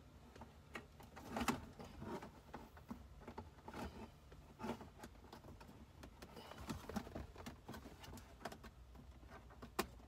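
Scattered light clicks and taps of hands handling small plastic instrument-cluster parts, the sharpest about one and a half seconds in, over a faint steady low hum.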